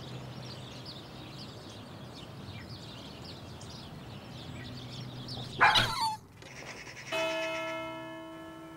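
A sudden loud noise about five and a half seconds in, then a bell struck once: a ringing tone of several pitches that slowly fades.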